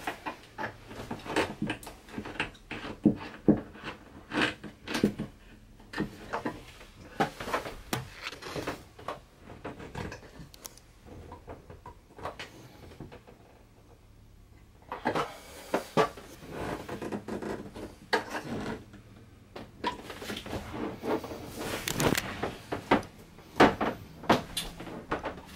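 Flexible metal shower hose being screwed by hand onto the outlet of an RV shower valve and handled against the plastic shower wall: scattered light clicks, knocks and rattles, quieter for a few seconds about halfway through.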